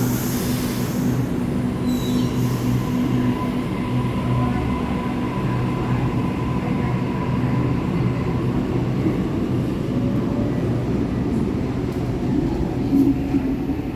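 Electric suburban train running past the platform, a steady hum over rolling noise, with a short hiss right at the start.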